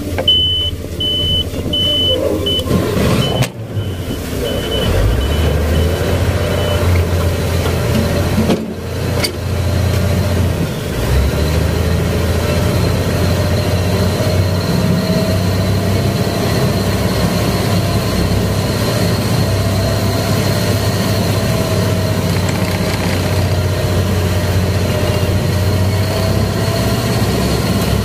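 A purse-seine skiff's engine runs steadily as the skiff moves away from the tuna seiner, with water rushing along the hull. A repeated short beep sounds in the first several seconds and then fades out.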